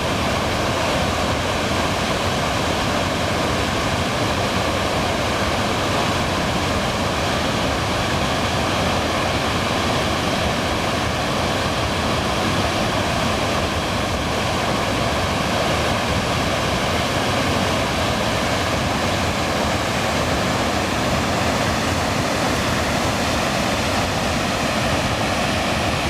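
Waterfall on a river: a steady, unbroken rush of falling water.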